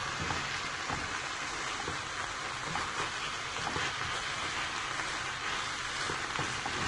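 Shredded chicken and vegetables sizzling steadily in a hot pan, with scattered light clicks as they are stirred.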